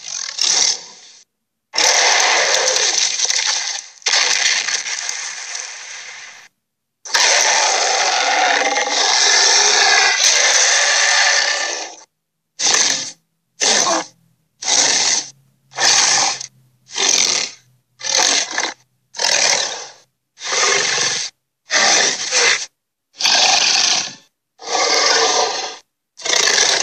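Harsh, rasping creature sound effects. A few long rough roars come first, then a run of short rasping bursts about once a second, each cut off sharply to silence.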